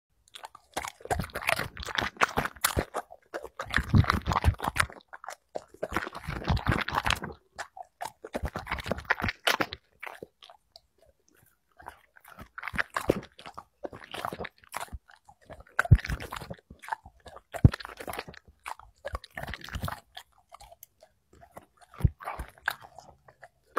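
Black Labrador chewing hand-fed shrimp, quail eggs and broccoli close to the microphone. Dense bursts of crunching come in roughly the first ten seconds, then the chewing turns sparser and quieter, with a few sharp clicks of teeth.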